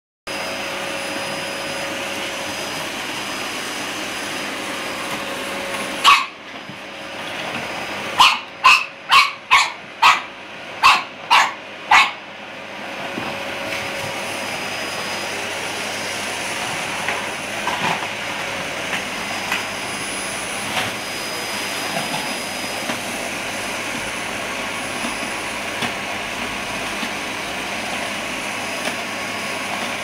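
A vacuum cleaner running stops suddenly about six seconds in, and a pug barks about eight times in quick succession, roughly two barks a second. The vacuum then starts up again and runs on steadily, with a few light knocks.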